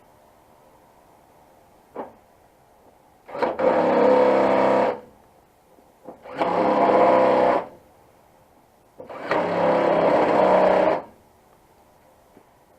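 Cordless power driver running in T30 Torx screws, whirring in three bursts of about one and a half seconds each with short pauses between them, and a single click about two seconds in.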